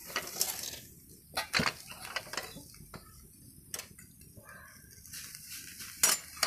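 Steel cooking pots and utensils clinking and knocking as a wok is handled on a wood-fired clay stove: scattered sharp clinks, the loudest about a second and a half in and two close together near the end.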